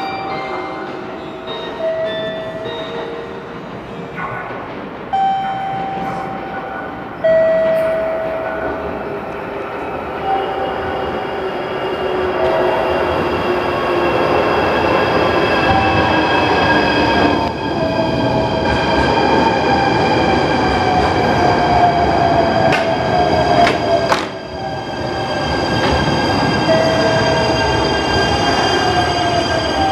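JR Shikoku 8600 series electric train pulling in along the platform, its motor whine falling steadily in pitch as it brakes, over wheel-on-rail rumble with a few sharp knocks. Before it arrives, short steady electronic tones sound several times.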